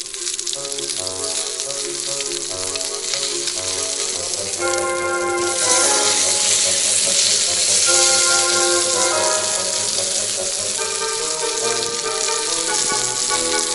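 Meat sizzling as it cooks, under background music. The sizzle grows louder about five seconds in.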